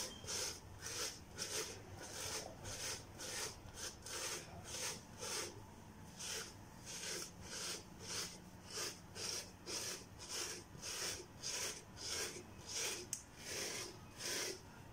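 A hairbrush stroking repeatedly through natural type 4 hair, sleeking it back into a high puff: a soft rasping sweep about twice a second.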